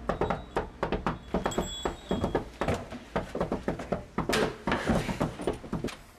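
Rapid knocking and rattling at a wooden front door, with a small hanging bell ringing briefly about a second and a half in.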